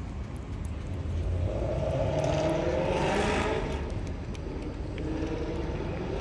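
A motor vehicle passing by: its engine and road noise swell to a peak about three seconds in and then fade away.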